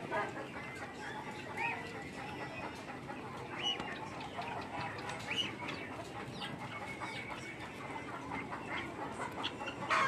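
Farmyard poultry calling: a steady murmur of low clucking, with short high chirping calls every second or two and one louder sharp call at the very end.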